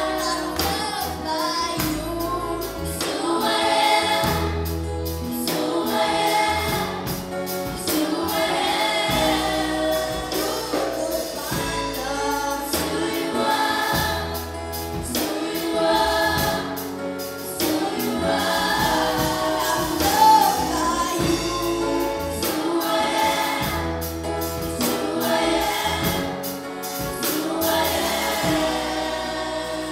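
A group of children singing a gospel worship song into microphones, a girl's lead voice with others joining, over instrumental backing with a steady beat.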